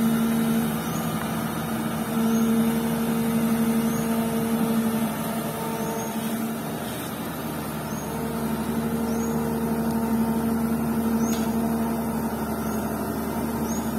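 Komatsu PC200 hydraulic excavator's diesel engine running under working load as it digs and swings a bucket of fill. The steady hum swells and eases in level, dipping between about five and eight seconds in, then rising again as the loaded bucket comes over the truck.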